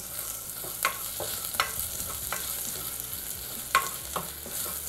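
Onions, ginger-garlic paste, green chillies and curry leaves sizzling in hot oil in a pressure cooker as they are stirred, with a steady hiss and about five sharp knocks of the stirring utensil against the pot.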